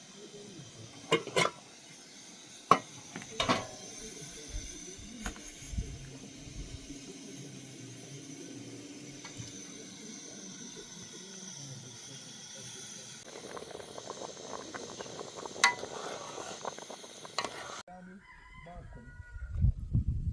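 Rooster crowing against a steady outdoor background, with several sharp knocks in the first few seconds and an abrupt cut near the end.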